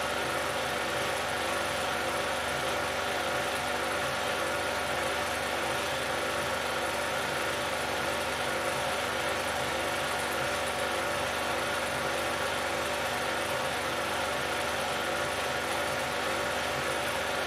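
16mm film projector running: a steady mechanical whir and hum with a fine regular pulsing.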